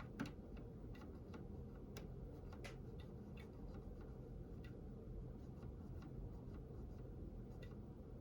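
Faint steady low hum with soft clicks scattered through it, about two or three a second and unevenly spaced; one click a fraction of a second in is a little louder.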